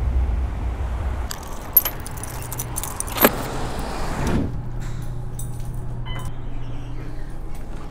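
Clicks and clinks of a delivery bag and its fittings being handled, with a sharp click about three seconds in. A steady low elevator hum follows, with a short beep about six seconds in as a floor button is pressed.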